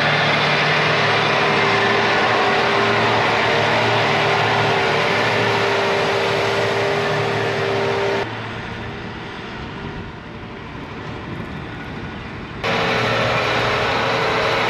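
A machine running loudly and steadily, with a constant hum under a dense rushing noise. It drops away abruptly about eight seconds in and comes back just as suddenly near the end.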